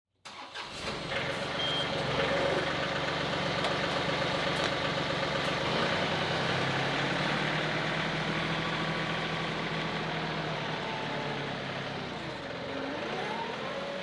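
A vehicle engine running steadily, its pitch dropping and climbing back up near the end.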